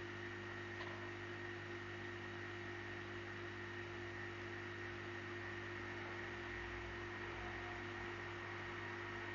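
Steady electrical hum with a faint high whine over a low hiss, unchanging throughout, with one faint tick about a second in.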